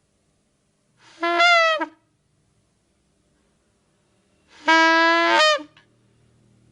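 Wild duck calling twice, each call a drawn-out steady note about a second long that dips in pitch at the end; the second comes about three seconds after the first.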